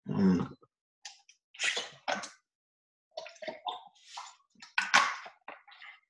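A brief vocal sound at the start, then scattered short rustles and knocks of things being handled, cut in and out by a video call's noise suppression.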